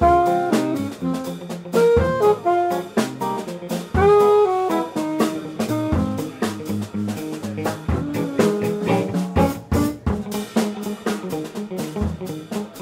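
A live jazz trio: alto saxophone playing a melodic line of quick, changing notes over electric guitar and a drum kit.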